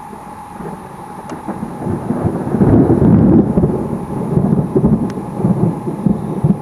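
Thunder rumbling: it builds about two seconds in to a loud peak and then keeps rolling and crackling.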